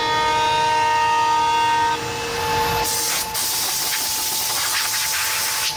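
CNC router spindle running with a steady high whine, several of its tones dropping out about two seconds in. About three seconds in, a compressed-air blow gun starts a loud, even hiss, blowing chips off the cut part, and cuts off suddenly near the end.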